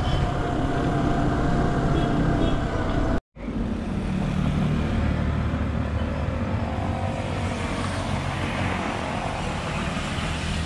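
Motorcycle running on the road. After a sudden cut about three seconds in, it gives way to steady roadside traffic, with motorcycles going past.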